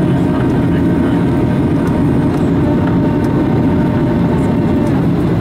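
Cabin noise inside a Boeing 737-800 on approach, heard from a window seat over the wing: the steady low rumble of airflow and CFM56-7B engines, with a faint steady whine above it.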